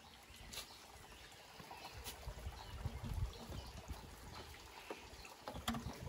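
Spring water trickling and pouring, with a low rumble that swells about halfway through and a few sharp clicks.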